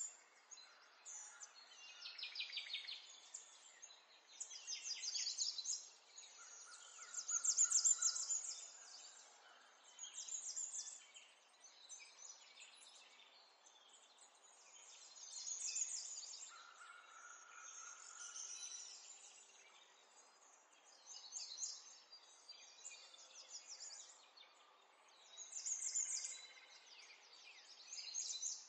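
Small birds chirping in repeated bursts of rapid, high chirps every few seconds, fairly faint.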